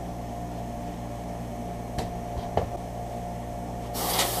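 Steady low electrical hum, with two knocks about halfway as the dot matrix printer's plastic case is handled. Near the end a loud burst of hissing compressed air from a canned air duster starts, blowing dust out of the printer.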